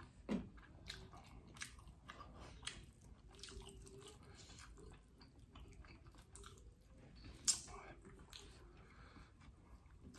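Close-miked eating: soft chewing and mouth smacks from people eating rice and sambal by hand, with scattered small clicks. One louder mouth sound comes just after the start, and a sharp click about seven and a half seconds in.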